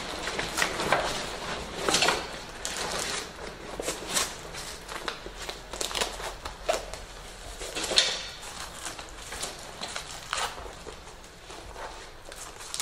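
A fabric protective cover rustling and swishing as it is pulled down over a stack of line-array speaker cabinets, in a run of irregular rustles with a sharper swish about two-thirds of the way through.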